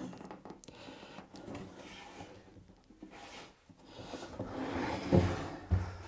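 Quiet handling of wood: a wooden lid panel rubbing and shifting on top of a wooden box on a workbench, then a louder scuffle and two low thumps near the end.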